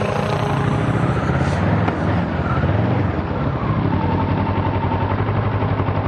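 Motorcycle engine running at low revs close to the microphone, with a fast, even firing pulse; it settles into a steadier idle about halfway through.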